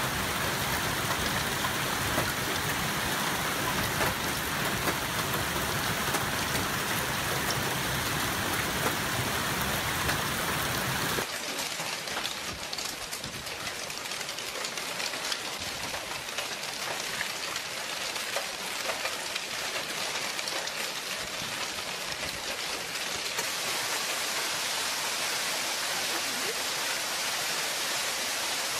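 Hailstones pelting the ground: a dense, steady hiss of countless small impacts. About eleven seconds in, the sound changes abruptly to a thinner patter with less low rumble and many small separate ticks of stones striking paving.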